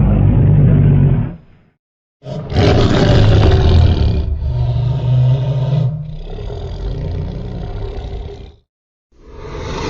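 Tyrannosaurus rex roar sound effects: a short roar of about two seconds, then after a brief gap a longer roar of about six seconds that changes in tone partway through, and a third roar beginning near the end.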